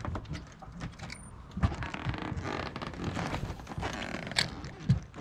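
Spinning rod and reel being handled: rapid clicking and rustling, with sharp knocks about a second and a half in and twice near the end.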